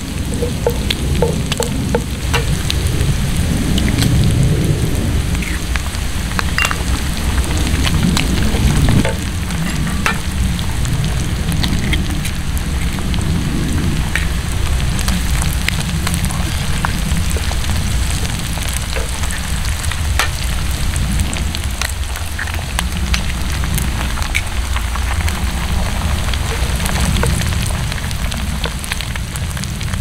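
Diced bacon, vegetables and eggs frying in a cast iron skillet over campfire embers, a steady sizzle full of little pops and crackles, with a wooden spatula stirring and scraping in the pan. A heavy, uneven low rumble runs underneath, strongest in the first nine seconds or so.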